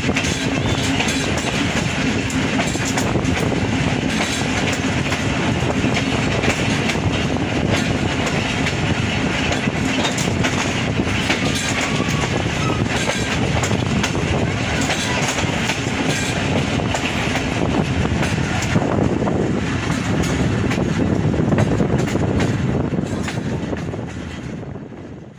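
Two Pakistan Railways passenger trains passing each other at close range on adjacent tracks: a steady loud rush of steel wheels on rail, with rapid clickety-clack over the rail joints. The sound fades out near the end.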